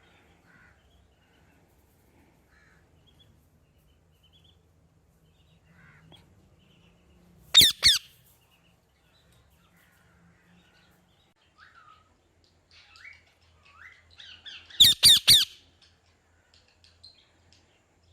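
Parrot squawking: a pair of loud, harsh squawks about seven seconds in and a quick run of three or four more near fifteen seconds, with soft short chirps in between.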